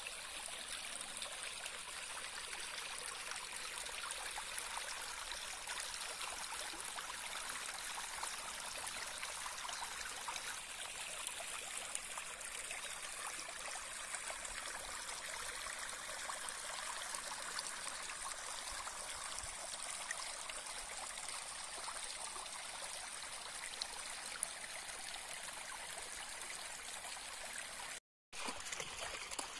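Shallow water running and trickling over stones and boulders in a small stream channel, a steady rushing that cuts out for a moment near the end.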